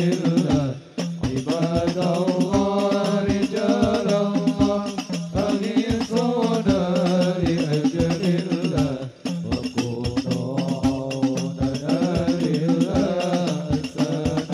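Hadroh ensemble: male voices singing an Arabic sholawat in unison through microphones, over rebana frame drums beating a steady rhythm.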